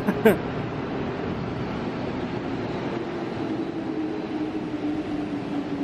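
Santiago Metro train running along the platform, a steady rumble with a motor hum that slowly drops in pitch as the train slows.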